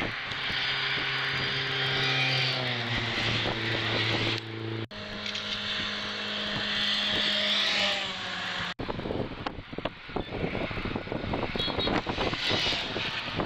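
Motorway traffic passing below, twice an engine note holding and then dropping in pitch as a vehicle goes by, with abrupt cuts between clips. The last few seconds are a rougher rush of tyre noise and wind buffeting.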